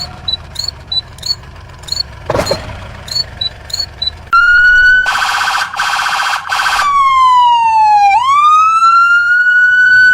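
Siren sound effect. First there is quick repeated chirping over a low hum. About four seconds in, a loud siren tone comes in, breaks into a harsh buzzing blast that pulses three times, then wails down in pitch and back up again.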